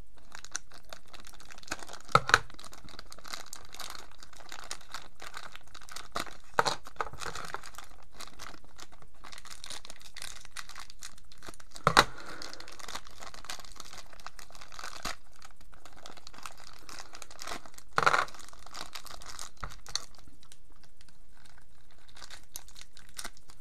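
Thin plastic packaging bags crinkling as they are cut and torn open by hand, with a few sharp clicks or snips along the way.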